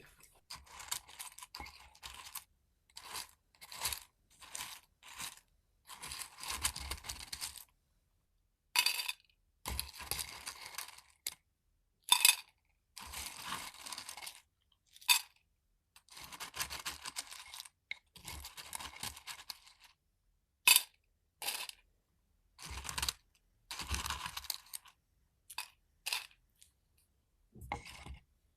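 Dried Chinese medicinal herbs being handled: repeated short bursts of crunchy rustling as they are scooped, poured and shuffled, separated by brief silences, with a few sharp clicks.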